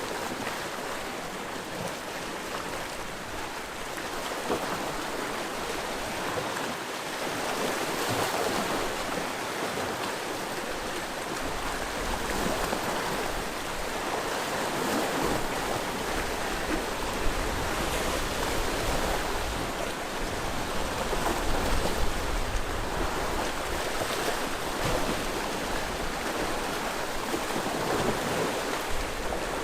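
Sea waves breaking and washing on the shore, a continuous surf that swells and eases every few seconds, with a deeper low rumble joining about a third of the way in.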